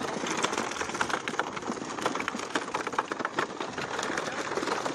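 Water splashing and dripping as a wet fine-mesh fish-corral net is hauled in by hand, a dense patter of many quick small clicks and spatters.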